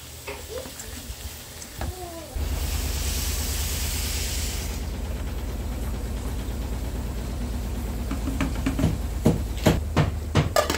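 Pressure cooker releasing its remaining steam: a hiss that starts suddenly about two seconds in and lasts about two and a half seconds, over a steady low hum. A run of light knocks near the end.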